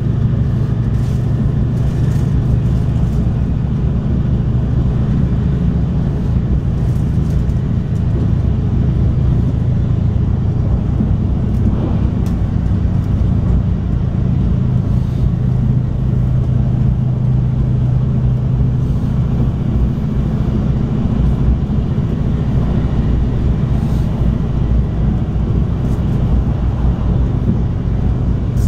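Steady low rumble of a diesel light rail railcar (NJ Transit River Line Stadler GTW) under way, heard from inside the passenger cabin: an even engine drone with running noise.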